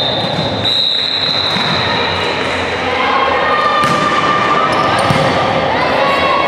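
Indoor volleyball play: a long, high whistle blast in the first couple of seconds, then players calling out while the ball is struck a few times.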